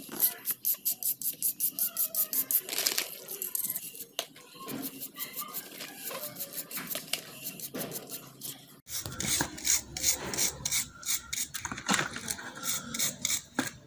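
A brush scrubbing a small plastic part in soapy water, in quick back-and-forth strokes about five a second. The strokes loosen and grow fainter in the middle, then pick up again.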